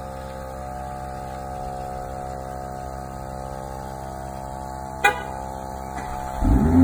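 BMW M340i's turbocharged 3.0-litre inline-six idling steadily, with a single sharp click about five seconds in. Near the end the engine revs up, its pitch rising and getting louder.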